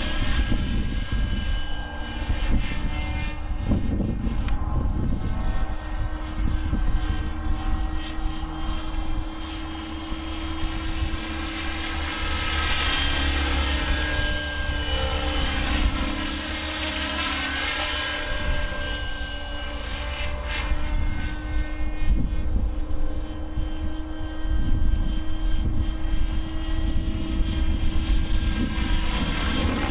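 Align T-Rex 600 radio-controlled helicopter in flight: a steady whine from its rotor and drivetrain, its pitch rising and falling around the middle as it manoeuvres. Gusts of wind rumble on the microphone.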